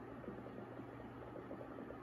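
Faint steady low hum with light hiss: background room noise, with no distinct pump strokes.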